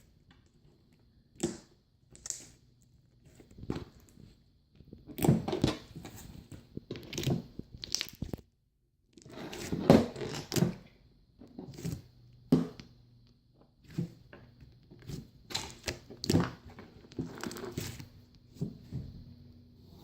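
Slime being handled and squished by hand: irregular crackling, squelching bursts of handling noise, some short and some drawn out, with brief pauses between them.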